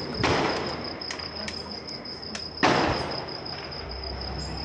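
Two gunshots about two and a half seconds apart, each loud and sudden with a long echoing tail, over the steady chirping of crickets.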